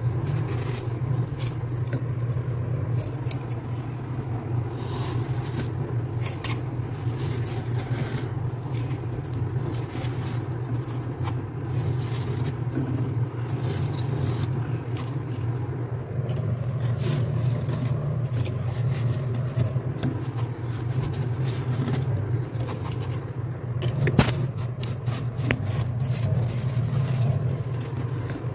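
Hand scraping powdery freezer frost off the freezer's walls and into a plate: gritty scraping and crackling clicks, with sharper clicks about six seconds in and again near the end, over a steady low hum.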